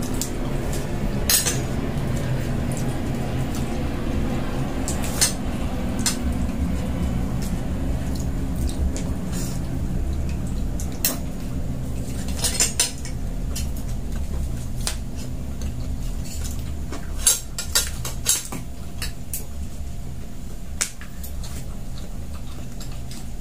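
Cutlery and hands clinking now and then against plates, a bucket and food containers during a meal, scattered single clicks with a few quick clusters, over a steady low hum.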